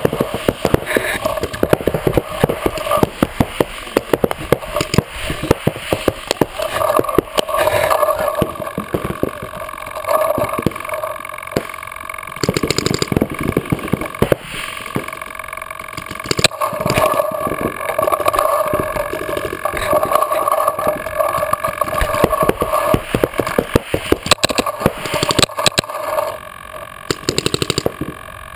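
Paintball markers firing in rapid strings of sharp shots, the loudest from the Mini marker the camera is mounted on. A steady hum runs underneath and swells at times.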